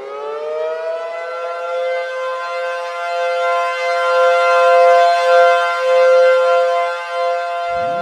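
Civil defense siren finishing its wind-up in the first second, then holding a loud, steady two-note wail. Near the end a second siren starts winding up, rising in pitch beneath it.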